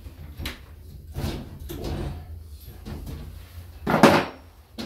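Knocks and clatter of things being handled, with one much louder clunk about four seconds in.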